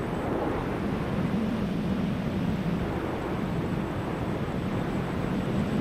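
Battery-powered electric RC airplane's motor and propeller running steadily in flight: a continuous low drone mixed with rushing air noise.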